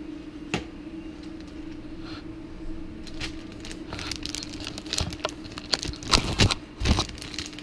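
Crinkling and rustling handling noise with scattered knocks and clicks, busier and louder in the second half, over a steady low hum.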